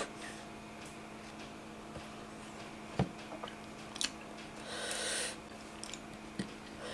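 Barbecued chicken-tail skewers being handled on a plate: a few faint clicks and taps, with a brief rustle about five seconds in, over a low steady hum.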